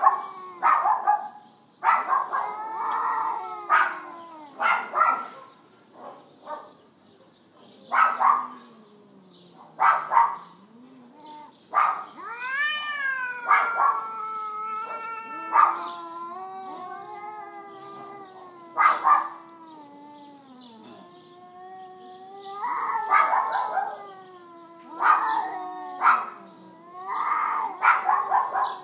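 Cats in a standoff or fight caterwauling: long wavering yowls that rise and fall, over lower drawn-out growling tones. They are broken again and again by short sharp noises, such as hisses and spits.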